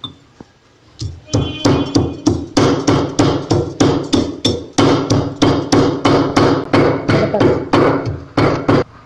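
Stone pestle pounding dried pomegranate seeds in a stone mortar to crush them coarsely. A steady run of heavy strikes, about three a second, starts about a second in.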